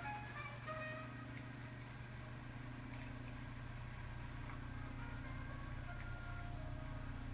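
A coloured pencil scratches on paper for about the first second, then stops. Under it and after it runs a steady low hum with faint, scattered musical tones.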